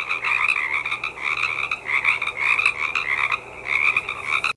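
A chorus of frogs calling, many high-pitched pulsed calls overlapping in a continuous din.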